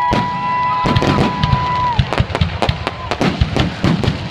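Aerial firework shells going off in a dense barrage, rapid bangs and crackles overlapping one another. A held high tone sounds through the first two seconds, then dips and stops.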